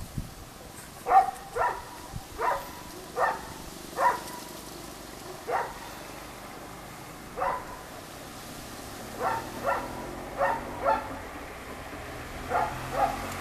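A dog barking repeatedly, about a dozen barks in all, some single and some in quick pairs, spaced irregularly a second or so apart.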